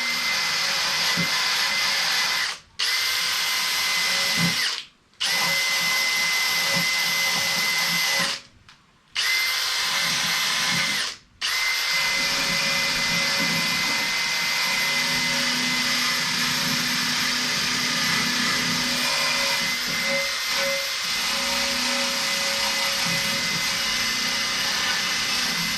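High-speed handheld power tool, a drill-type tool, running with a steady high whine as it cleans old gasket adhesive off a valve cover. It stops briefly and restarts four times in the first twelve seconds, then runs unbroken.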